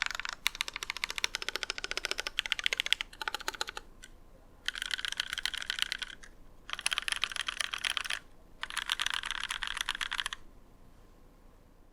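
Typing on an ID80 mechanical keyboard with NovelKeys Cream linear switches lubed with Krytox 205g0 and GMK Cyan keycaps. Fast runs of keystrokes come in four bursts separated by short pauses, and the typing stops about ten seconds in.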